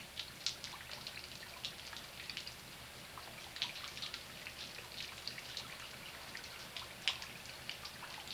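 Rain dripping: irregular light ticks of falling drops over a faint steady hiss, with a few sharper drips, the strongest about seven seconds in.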